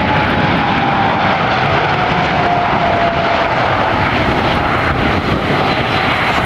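Boeing 747 jet engines, loud and steady as the airliner passes close by, with an engine whine that falls slowly in pitch through the first half.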